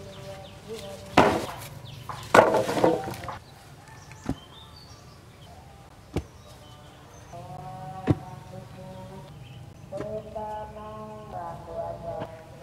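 A bundle of wooden poles is dropped with two loud clatters a second or so apart. Then a wooden pole is rammed down into a dug hole to set it as a post, with a sharp thud every couple of seconds.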